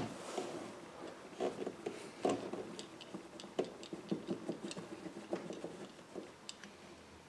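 Irregular light clicks and rustling from hands working a plastic Scotty rod-holder base on boat carpet, lining it up over drilled holes and fitting rivets into them.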